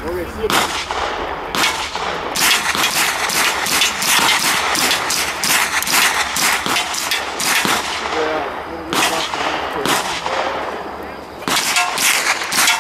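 Long bursts of rapid automatic machine-gun fire, with short breaks about eight and eleven seconds in.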